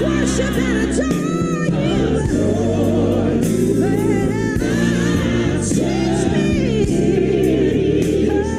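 Gospel song: voices singing over held instrumental chords.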